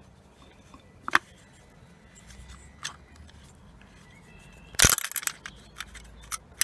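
Metal clinks and knocks from a motorcycle clutch being worked apart by hand: a few sharp clicks, then one loud knock about five seconds in followed by a run of light rattling clicks as the stuck clutch plates are worked loose.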